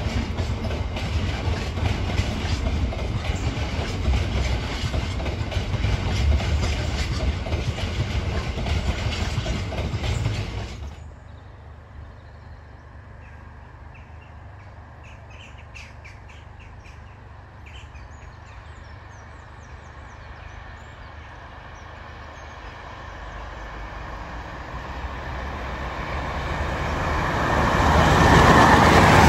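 A Class 60 diesel locomotive running past with wagons, steady and loud with wheel and rail noise. This cuts off suddenly about eleven seconds in. A pair of Class 47 diesel locomotives hauling coaches then approach at speed, growing steadily louder to a peak near the end.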